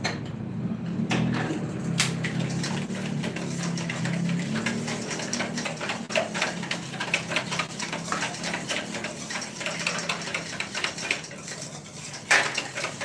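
Wire whisk beating egg yolks, sugar and water in a stainless steel bowl: quick clicking and scraping of the tines against the metal, busier from about halfway in. A loud clank of metal near the end.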